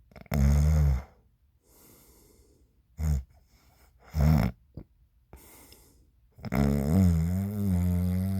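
Snoring: a short snore about half a second in and two brief ones around three and four seconds. From about six and a half seconds in comes a long, deep snore whose pitch wavers.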